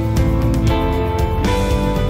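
Background music: a guitar-led track with a steady beat, its chords changing a couple of times.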